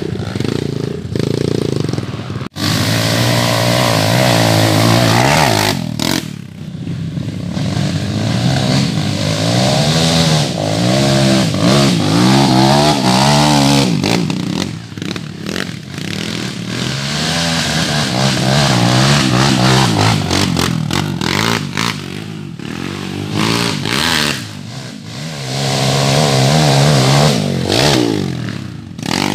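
Off-road dirt bike engines revving hard, pitch rising and falling again and again as the bikes labour up a muddy, slippery climb. The sound breaks off and jumps abruptly a few times as it switches from one bike to another.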